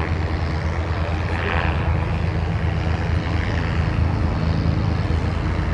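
Westland Lynx AH7 helicopter in flight: a steady, rapid rotor beat over the sound of its twin Rolls-Royce Gem turboshaft engines.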